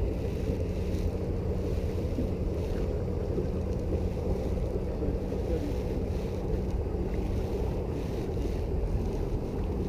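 Wind buffeting the microphone on a fishing boat, a steady low rumble with a faint steady hum running under it.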